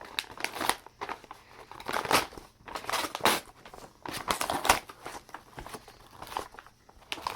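A mailing package being torn open and its wrapping crinkled by hand, in irregular bursts of rustling and ripping.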